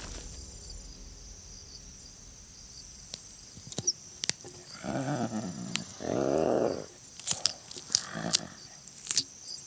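Cheetahs feeding at a fresh kill: scattered sharp clicks of chewing and tearing, with three short rough growls about five, six and eight seconds in.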